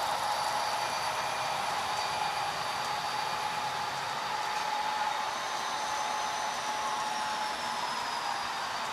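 Model freight trains running on the layout's track and helix: a steady whir of locomotive motors and wheels on the rails, with thin whining tones, one of which slowly falls in pitch about halfway in.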